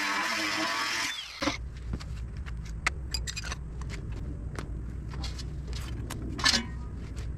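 A loud whirring hiss that cuts off abruptly about a second in. Then scattered clicks and light metallic knocks of tools and metal being handled over a steady low rumble, with a sharper clatter near the end.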